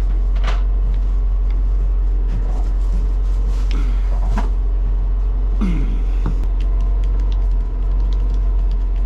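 A steady low mechanical hum, with a few light knocks and clicks over it.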